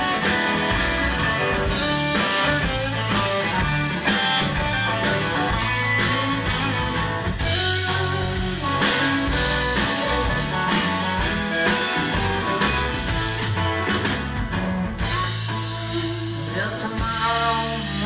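Live country-rock band playing: electric guitars over bass and drums, with regular drum hits throughout.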